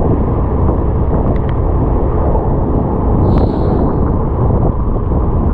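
Wind buffeting on a bare GoPro Hero 8 Black's microphone during a motorcycle ride on a wet road, a loud steady rush with road noise underneath. A short high chirp sounds about three seconds in.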